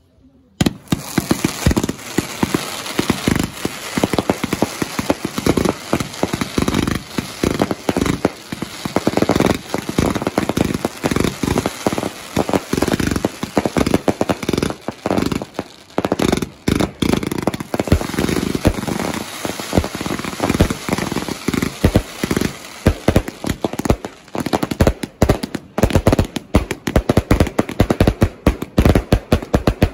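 Firework cakes firing a dense, rapid barrage of bangs and crackles that starts abruptly about half a second in and keeps going without a break.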